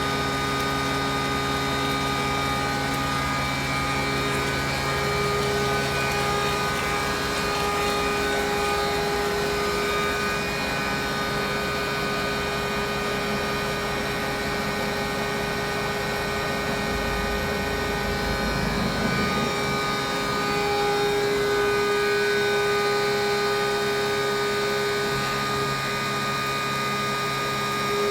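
Correa A 30/40 CNC fixed-bed milling machine running: a steady mechanical hum made of several steady whining tones that shift pitch a few times, with a low rumble about 17 seconds in.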